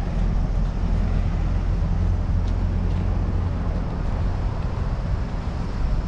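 Wind buffeting the microphone: a steady low rumble with an even hiss above it.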